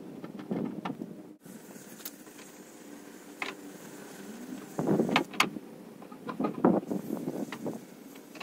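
Hand rivnut gun being worked at a Jeep tailgate: scattered sharp metal clicks, with two short clusters of clicking and rattling about five and six and a half seconds in.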